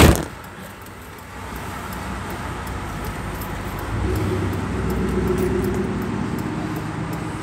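Road and engine noise from inside a car in slow highway traffic. A sharp knock comes right at the start, and about four seconds in a low engine hum swells up and holds.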